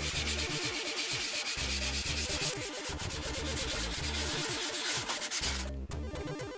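Sandpaper rubbing over the plastic housing of a Commodore 1541-II floppy drive in quick back-and-forth strokes, abrading it to key the surface for primer and paint. The sanding stops abruptly near the end.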